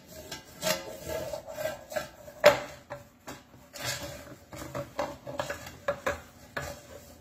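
Metal springform cake pan being handled: its ring and base scrape and click as the sides are adjusted, with scattered knocks of the pan on the stone countertop, the loudest about two and a half seconds in.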